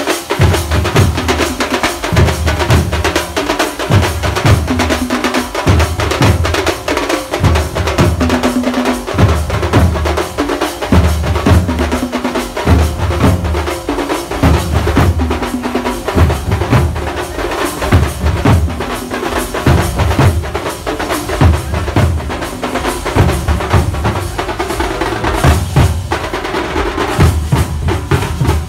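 A group of drummers playing strap-hung drums with sticks: dense, rapid strokes over a deep beat that recurs about once a second, loud and continuous.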